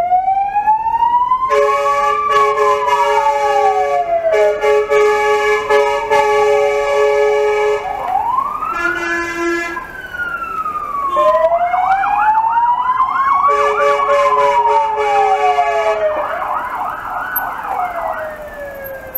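Emergency sirens from a police car and fire engine: a slow wail rising and falling over a few seconds at a time, joined twice by a steady blaring tone, with a fast warbling yelp in the second half.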